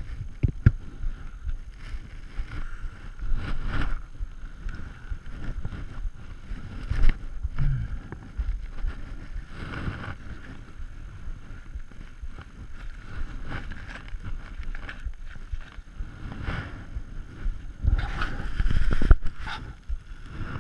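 Wind rumbling on an action camera's microphone, with rustling and irregular knocks as fishing gear and a bag are handled close to the camera; the handling is loudest near the end.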